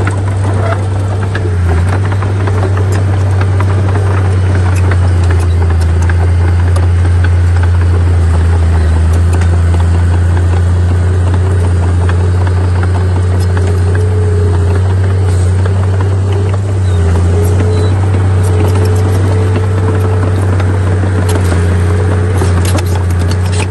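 Heavy diesel engine of earthmoving machinery running steadily at a constant low drone, with light scattered rattling.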